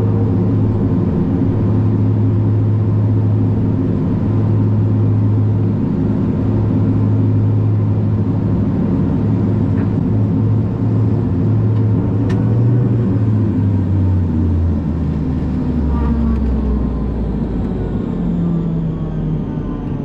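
BAe Jetstream 41's turboprop engines, heard from inside the cabin, running with a steady low drone. About fourteen seconds in the drone drops in pitch and a high turbine whine starts to fall: the engines are being shut down on the stand and spooling down.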